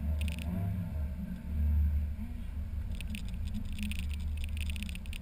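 Open-top Mazda Miata driving: steady low wind and road rumble with the engine running under it, swelling briefly about a second and a half in. A rapid high-pitched ticking comes and goes near the start and again from about three seconds in.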